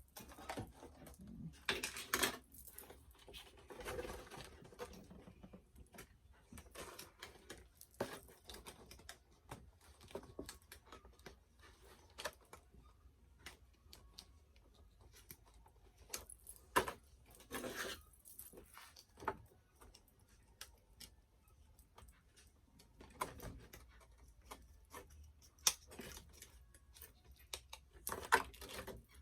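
Small plastic doll accessories and packaging being handled: scattered clicks, taps and rustles at irregular intervals.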